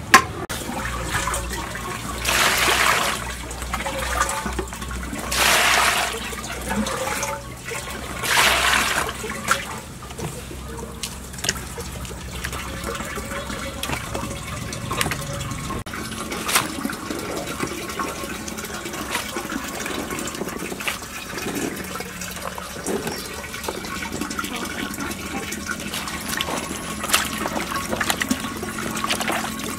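Water poured into a plastic basin in three short gushes about three seconds apart, then quieter sloshing and splashing as vegetables are washed by hand in the water.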